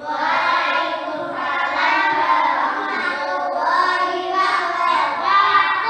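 A class of young children singing together in unison, voices sustained and wavering in pitch without a break.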